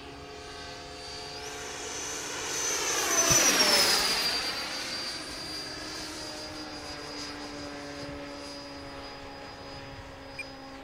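Freewing L-39 Albatros RC jet's 80mm electric ducted fan, driven by an inrunner motor, whining at speed as it flies past. It grows to its loudest about three and a half seconds in, its high whine dropping in pitch as it passes, then fades.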